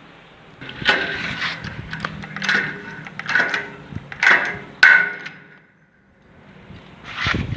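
Hammer blows, about six in four seconds, each leaving a short ring; after a brief lull comes one more blow near the end.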